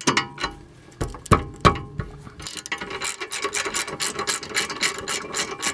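Ratchet wrench on the 18 mm caliper bracket bolts as they are worked loose: a few sharp clicks and knocks in the first two seconds, then a run of rapid, even ratchet clicks from about three seconds in.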